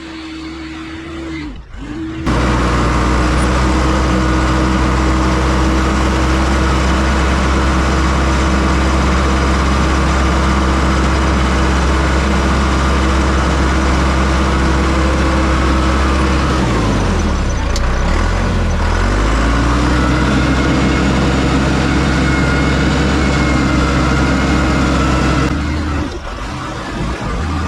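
John Deere 550 crawler dozer's diesel engine running at a steady high speed. Its speed sags for a couple of seconds about two-thirds of the way through, then climbs back up.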